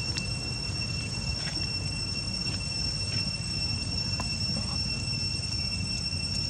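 A steady high-pitched insect drone, one unbroken tone with a fainter overtone above it, over a low rumble and a few faint short sounds.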